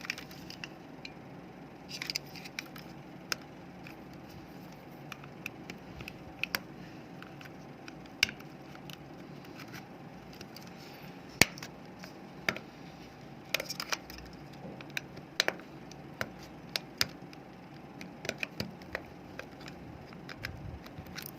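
Air-conditioner remote control's plastic case being pried open by hand: irregular sharp plastic clicks and snaps, with one louder snap about halfway through, over a faint steady hum.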